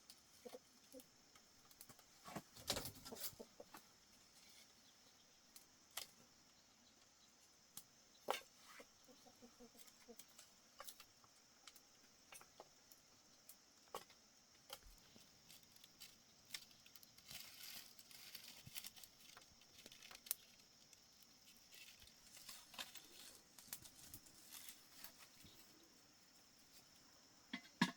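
Quiet scattered light taps, clicks and rustles, with a small cluster of louder knocks about three seconds in, over a faint steady high hiss.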